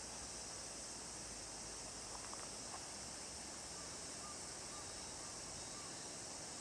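Steady shrill insect chorus over the broad, even rush of river water, with a few faint short chirps in the middle.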